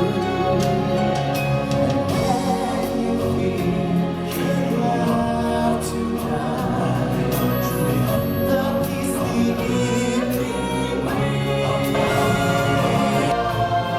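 Choir singing over instrumental music, loud and continuous, in the style of a stage-show musical number.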